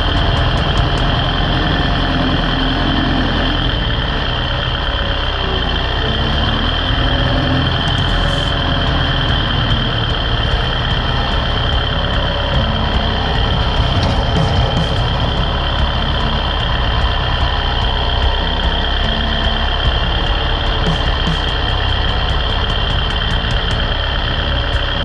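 Kubota compact tractor's diesel engine running steadily under load as its loader pushes snow, with a steady high whine over the engine.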